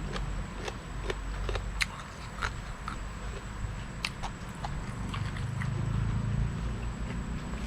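A person chewing a mouthful of pig-face salad with raw herbs, with scattered sharp mouth clicks and crunches.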